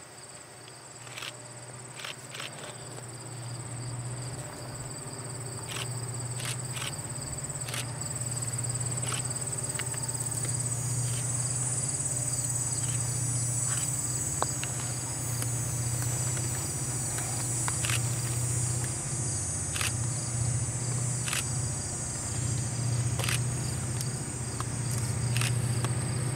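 Diesel locomotive engine drone, low and steady, growing louder as the Northshore Mining train approaches. Insects, crickets among them, buzz steadily in high pitch, with scattered sharp clicks.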